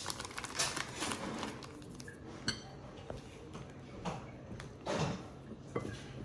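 Plastic bag of tapioca starch rustling as the powder is shaken out into a glass mixing bowl, then a spoon clinking and scraping against the glass as the starch is stirred in, with a few sharp clinks.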